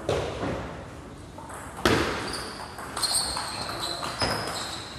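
Table tennis ball being served and rallied: sharp hollow clicks of the celluloid ball off rubber-faced rackets and the table, a handful of them about a second apart, the loudest about two seconds in.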